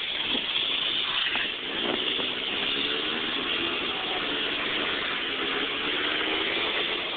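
Snowmobile engine running at a steady speed with a hiss over it, its pitch wavering slightly up and down from about two seconds in.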